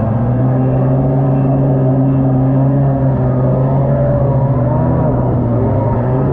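Two-stroke stand-up jet ski engine running at a steady, even pitch under way, with the rush of water from the hull and jet.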